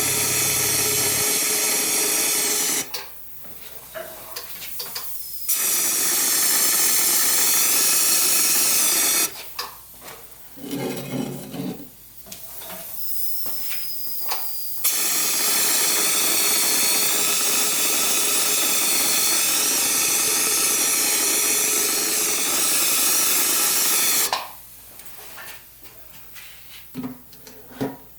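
Compressed air hissing from a powder coating spray gun in three long bursts that start and stop abruptly, the last lasting about nine seconds, with quieter handling noises in the pauses.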